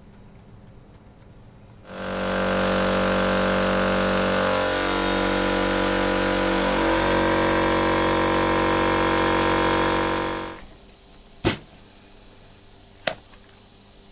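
A motor-driven machine runs loudly for about eight seconds, its pitch shifting a couple of times midway, then stops abruptly. Two sharp clicks follow, about a second and a half apart.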